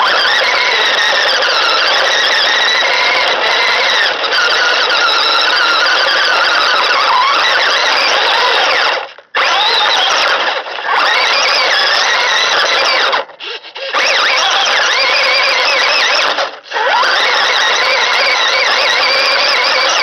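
LaTrax Teton RC truck's brushed electric motor and gear drivetrain whining loudly, heard from a camera riding on the truck, its pitch wavering up and down with the throttle. The whine cuts out briefly three times, about halfway through and twice later, as the throttle is let off.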